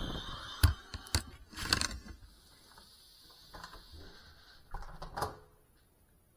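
Handling noise from a small FPV drone being picked up and set down: a few sharp clicks and knocks, a cluster of them early on and one more about five seconds in, with a faint steady high hiss between them.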